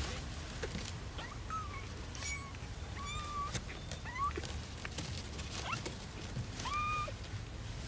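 Kittens mewing: a series of short, high-pitched mews, some sliding upward in pitch, coming every second or so.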